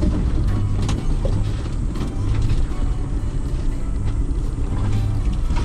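Ford Bronco's engine running at low, steady revs as it crawls along a rocky dirt trail, heard from inside the cabin. Scattered clicks and knocks come from tyres on stones and the body and suspension working over the rough ground.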